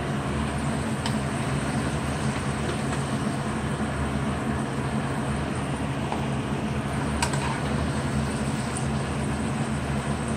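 Cut potato fries sizzling steadily in bubbling hot oil in a skillet, over a steady low hum, with a few sharp clicks of metal tongs against the pan.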